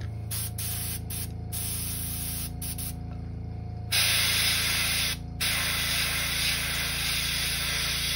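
Airbrush spraying black ink to darken the nose of a crankbait: a few short hisses of air, then from about four seconds in a steady hiss with one brief break, over a steady low hum.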